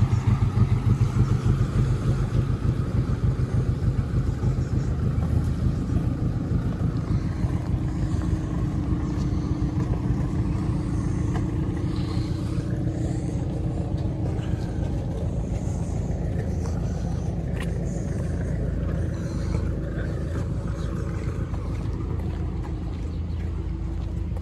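Narrowboat's diesel engine chugging with a fast, steady beat as the boat passes, growing fainter as it moves away.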